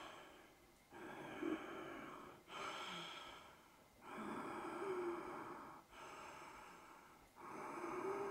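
A woman breathing slowly and deeply, close to a clip-on microphone: about five long breaths, in and out in turn, each lasting one to two seconds.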